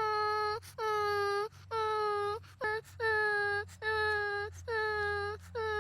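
A high, whining cry repeated about once a second, each cry a short held note at the same pitch that starts with a quick upward scoop.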